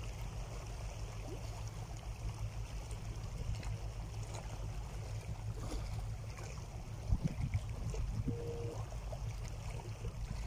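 Small sea waves washing and lapping against shoreline rocks over a steady low rumble, with a single knock about seven seconds in.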